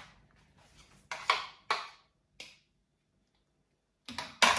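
Sharp taps and clinks of a utensil against a mixing bowl, four in the first two and a half seconds, then a silent gap and a quick run of clinks near the end.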